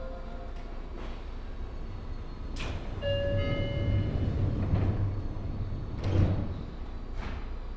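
Seibu 9000 series train standing at the platform with its doors closing: a short chime about three seconds in, a few sharp door thuds, and a low rumble from the train.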